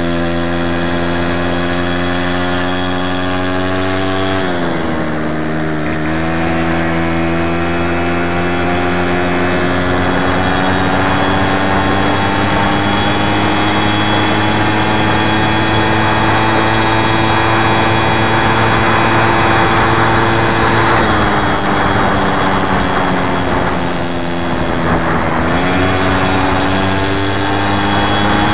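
Small two-stroke VéloSolex moped engine running under way. Its pitch dips briefly about four seconds in and twice more near the end, then picks back up.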